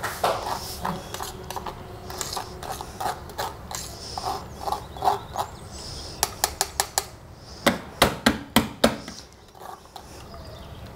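A knife scraping and tapping against a metal strainer as spinach-and-tomato pulp is worked through it to strain the juice, with a quick run of sharp metallic taps about eight seconds in.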